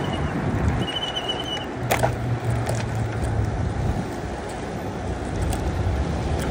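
Traffic noise heard from a moving bicycle: a steady rush of air and road noise, with the low hum of a van's engine running just ahead. A single sharp click about two seconds in.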